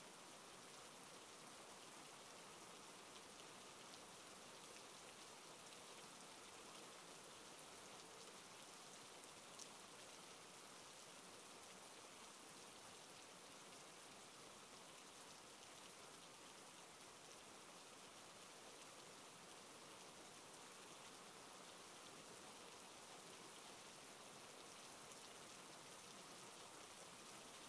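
Steady, faint rainfall: an even hiss of rain with no thunder or other sounds.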